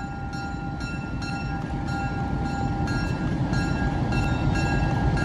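Alco FPA-4 diesel locomotive approaching at low speed, its engine rumble steadily growing louder, while a bell rings with evenly repeated strikes.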